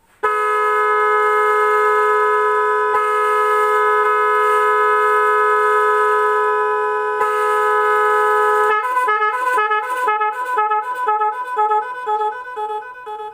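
Pair of electric air horns driven by an 18-pattern digital 'magic horn' controller, sounding a steady held two-tone chord for about eight and a half seconds. The controller then switches to its second pattern, a rapid warble that alternates between pitches at about four pulses a second.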